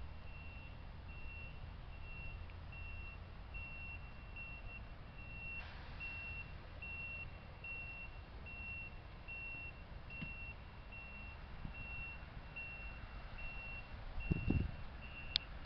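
A vehicle's reversing alarm beeping steadily, one high beep a little more than once a second, over a low steady rumble. A few low thumps near the end.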